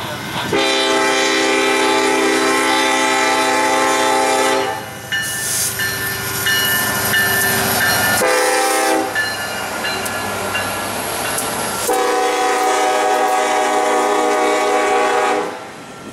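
Union Pacific SD70ACe locomotive's air horn blowing the grade-crossing signal, long, long, short, long, as the double-stack intermodal train passes close by, over the rumble and clatter of wheels on rail. The horn stops about half a second before the end, leaving the container cars rolling past.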